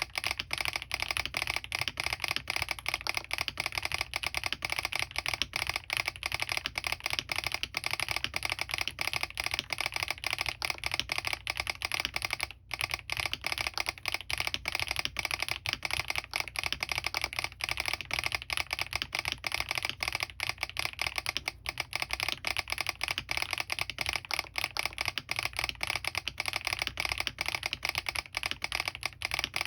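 Continuous fast typing on a Smurve80 mechanical keyboard with lubed HMX Catmint switches, doubleshot PBT keycaps, an aluminium plate and full foam, its solenoid switched on to tap along with the keystrokes. There is one brief pause about twelve and a half seconds in.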